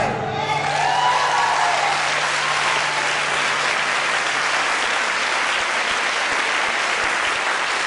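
Audience applauding, with a few shouts over it in the first couple of seconds.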